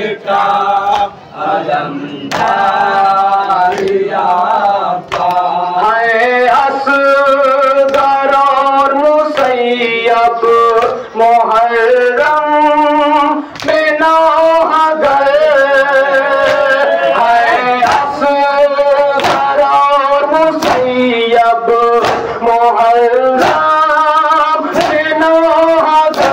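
Men singing a noha, a Shia mourning lament, in a steady chant, with the regular slaps of mourners beating their chests (matam) in time with it.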